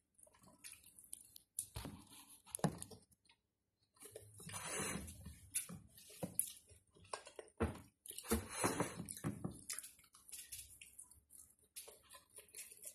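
Close-up mukbang eating sounds: wet chewing and slurping of stir-fried noodles, with two longer slurps and scattered sharp clicks of chopsticks.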